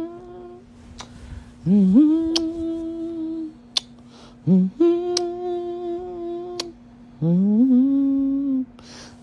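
A person's voice humming three long held notes, each sliding up into the note and then held steady. A faint steady hum lies underneath, with a few short clicks.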